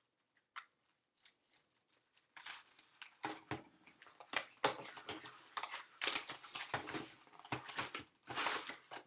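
Cellophane shrink wrap being cut and torn off a cardboard trading-card box, crinkling in a string of uneven bursts that start about two seconds in, after a few faint clicks.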